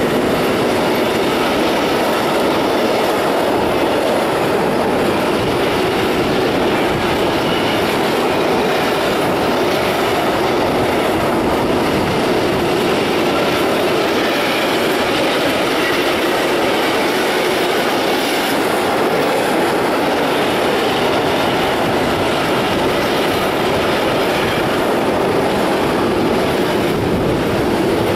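Container wagons of a freight train rolling past close by: a steady, loud rumble of steel wheels on the rails that keeps up without a break.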